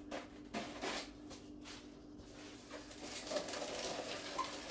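Small utility knife cutting packing tape along the seam of a foam shipping box: faint scratchy scraping with a few short clicks.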